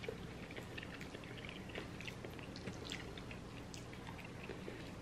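Quiet chewing of pasta, with many small wet mouth clicks scattered through it.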